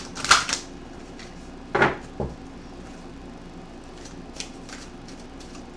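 A few short knocks and clatters of objects being handled and set down on a table. The loudest comes just after the start and another about two seconds in, followed by a soft thud and a few faint ticks.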